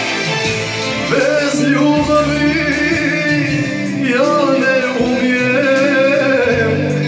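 A man singing into a handheld microphone over instrumental backing music, holding long notes with vibrato from about a second in.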